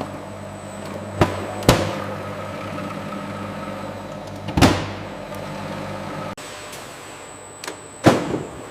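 A steady machine hum, broken by four sharp knocks: two close together about a second in, one in the middle and the loudest near the end. The hum drops away abruptly about six seconds in.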